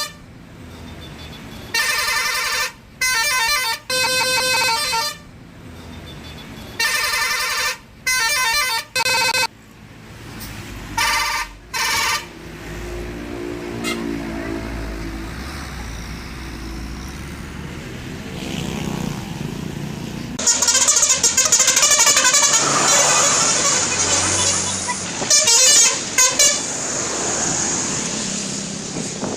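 Bus 'telolet' multi-tone horn playing a tune in a string of short bursts, each a few notes at different pitches, over the first dozen seconds. Then a bus drives by: its engine and road noise build up and are loudest over the last third.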